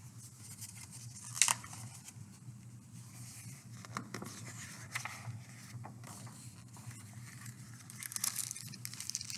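Pages and covers of a hardcover picture book rustling and flapping as it is handled and closed, with one sharp paper snap about a second and a half in and a busier patch of rustling near the end. A low steady hum lies underneath.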